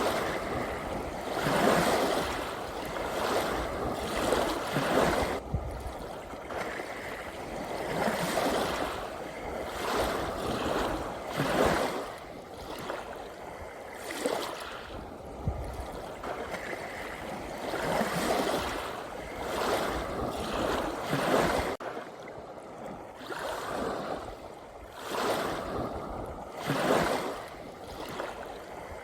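Sea waves breaking and washing in, a steady rush that swells and falls back every two to four seconds.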